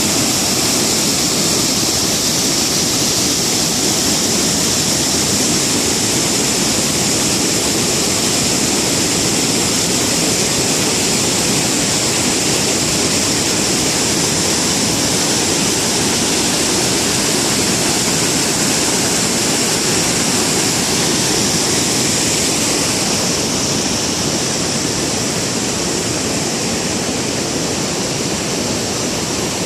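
Waterfall: a steady, loud rush of falling water, easing slightly over the last few seconds.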